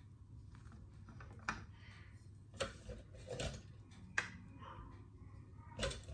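Cutlery clicking and tapping against dishes, about five separate light clicks spaced irregularly.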